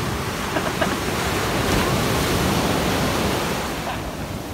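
Ocean surf: small waves breaking and washing up the sand in a steady rush that swells and eases again toward the end.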